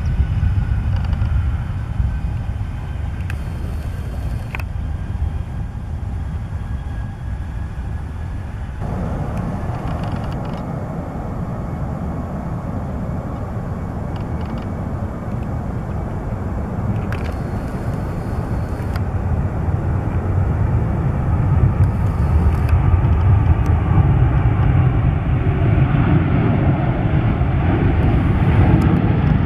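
Airliner engine noise heard outdoors, a steady rumble that grows louder over the last several seconds as the aircraft comes closer.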